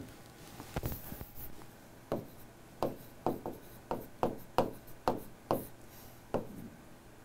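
Pen writing on an interactive display board: a run of about ten short, sharp taps and scrapes over some four seconds as the strokes land on the hard screen.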